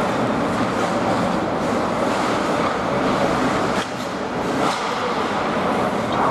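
Ice hockey play in a rink: a steady hiss and scrape of skates on the ice, with one sharp knock a little under four seconds in.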